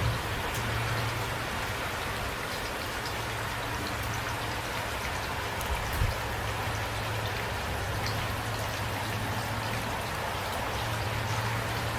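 Steady light rain, a constant hiss with individual drops ticking sharply now and then. A brief low thump comes about six seconds in.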